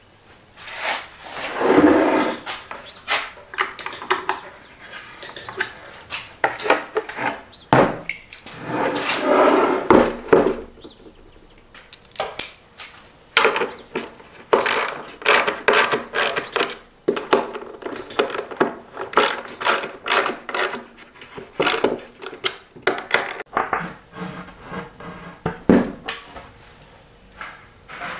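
Small metal hardware (bolts, washers and nuts) clinking and clicking as it is handled and fitted through holes in a plywood panel, with many short knocks and a few longer scraping sounds.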